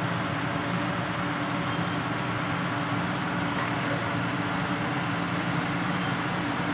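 Diesel engine of harvest machinery (combine or tractor) running steadily at a constant speed, a continuous low drone with a steady hum.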